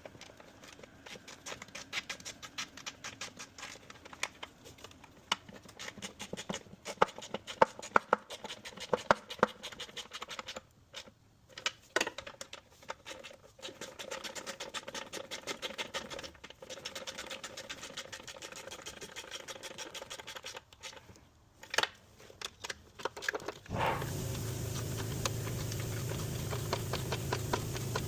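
Rapid, irregular clicking and scraping, which breaks off briefly twice. A steady low hum sets in suddenly near the end.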